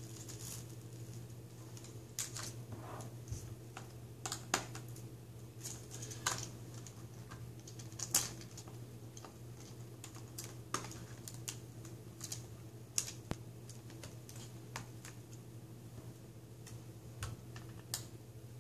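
Irregular light clicks and scrapes of a small screwdriver and fingers working at a laptop's plastic screen bezel as the bezel screws are taken out. A faint steady low hum runs underneath.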